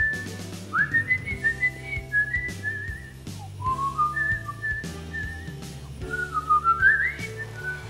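A man whistling a wandering tune, high notes sliding up and down between held pitches, with a short break about three seconds in.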